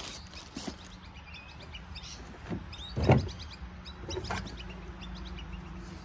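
A few clunks of objects being handled and set down, the loudest about three seconds in, over a steady low hum, with faint bird chirps in the background.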